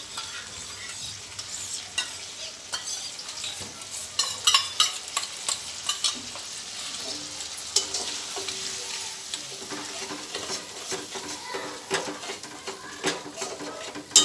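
Masala of onion, tomato, ground spices and beaten curd sizzling in hot oil in a kadai while a spatula stirs it, scraping and tapping against the pan with frequent sharp clicks: the masala being fried down.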